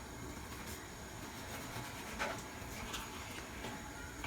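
Steak sizzling faintly on a very hot cast iron plate, a steady soft hiss with a few quiet crackles.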